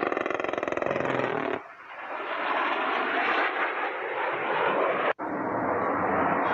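A burst of very rapid cannon fire from a Panavia Tornado's 27 mm Mauser gun, lasting about a second and a half and stopping abruptly. Then the jet noise of the Tornado passing, rising and running steadily.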